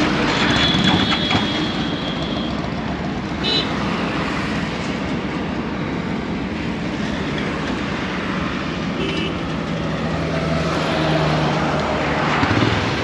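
Highway traffic noise from the roadside: vehicles passing steadily, with short high beeps a few times, the kind made by vehicle horns.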